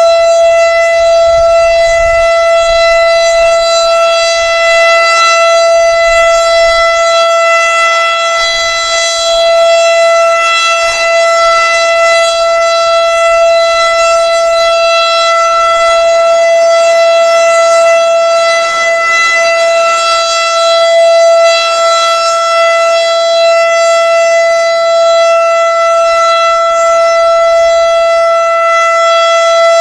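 Federal Super Siren outdoor warning siren sounding a steady Alert tone, a loud, unwavering, rich tone held at one pitch, here signalling a wind warning. Wind rumbles on the microphone underneath.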